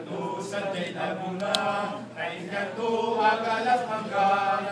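A group of men singing a chant-like song together in a native Luzon dialect, with long held notes that rise and fall.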